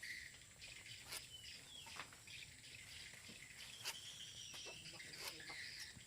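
Faint outdoor background of small birds chirping, with a few sharp light clicks or taps scattered through it.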